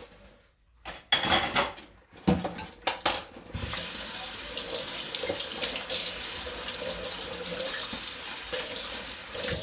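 Kitchen tap running into a sink while dishes are washed: the flow stops briefly at first, a few sharp knocks and splashes follow, then the tap runs steadily until it cuts off at the end.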